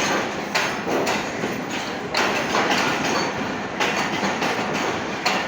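Train moving along the track: steady rolling noise of wheels on rail, with a clack from the wheels over the rail joints every second or so.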